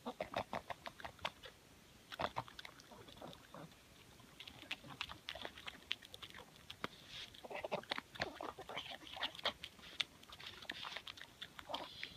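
A pug eating noodles from a hand: quick, irregular wet smacks and chewing clicks, with short pauses between mouthfuls.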